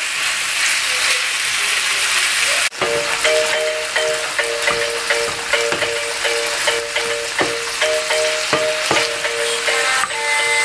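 Diced chicken sizzling in a frying pan while being stirred with a wooden spoon. Nearly three seconds in there is a sudden cut and background music with a steady, repeating beat comes in over the frying.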